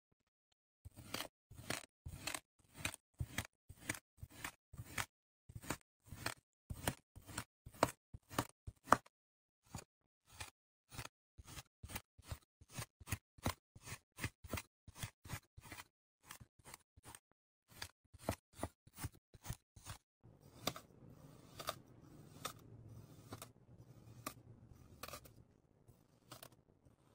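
Kinetic sand being cut in quick repeated slices, each a short crisp crunch, two to three a second. After about twenty seconds the slices come further apart over a low, steady rustling of the sand being pressed.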